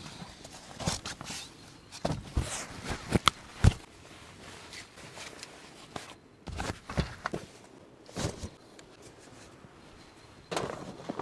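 Camping gear being handled and unpacked from a duffel bag onto a camp cot: fabric rustling, soft knocks as items are set down, and a few sharp clicks, the loudest two close together a little over three seconds in.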